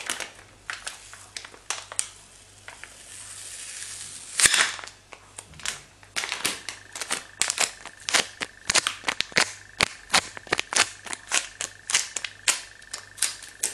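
Thin packaging crinkled and crushed in the hands close to the microphone: a run of sharp crackles, with one loud crunch about four and a half seconds in.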